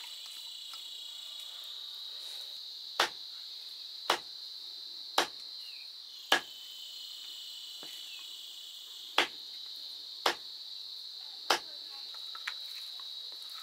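Khukuri chopping pork on a wooden chopping block: about eight sharp chops, roughly one a second with a short pause in the middle, over a steady high-pitched insect chirring.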